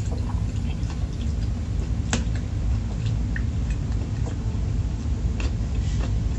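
Eating sounds: a fork and spoon clinking against a metal pot of noodle soup, with chewing, over a steady low hum. The sharpest clink comes about two seconds in.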